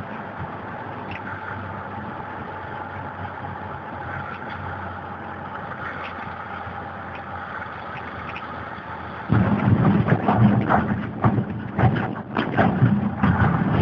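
Motor vehicle driving fast across grass: a steady rush of engine and wind noise that, about nine seconds in, turns suddenly much louder and uneven, with many short loud spikes.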